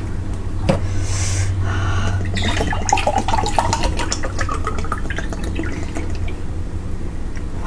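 Mango juice being poured into a glass, with a sharp clink a little under a second in.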